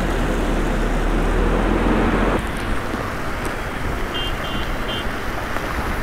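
Steady outdoor street and traffic noise, a hiss with a low rumble, which drops abruptly in level about two and a half seconds in. Three short high beeps sound near the end.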